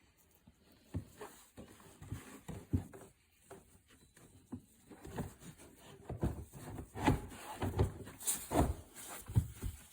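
Irregular knocks, thumps and rubbing as couch frame sections and their brackets are handled and fitted together, sparse at first and busier from about halfway.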